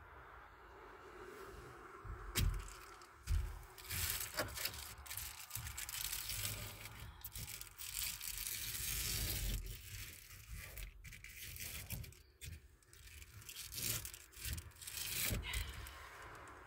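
A Reflectix foil bubble-insulation panel rubbing and scraping against a Jeep Wrangler's rear window as it is pressed and fitted into place by hand, with a few sharp knocks.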